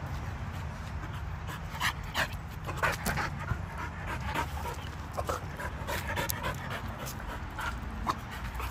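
Belgian Malinois dog panting, with a scatter of short, sharp clicks over it.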